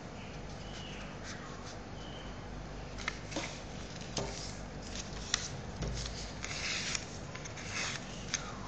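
A square sheet of paper being folded in half and creased by hand: faint rustling, with a few short, soft crackles and taps from about three seconds in.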